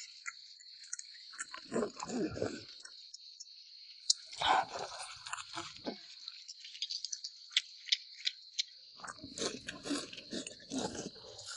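People chewing and eating, in three short bouts, with small sharp clicks between them, over a steady high drone of insects.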